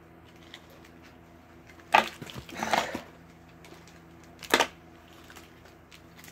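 Items and packaging being handled on a table: a sharp knock about two seconds in, a short rustle, and another knock a couple of seconds later, over a faint steady hum.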